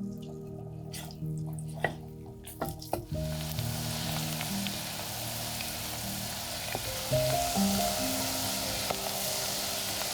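Food sizzling and frying in a hot pan, starting about three seconds in after a few light clicks and taps.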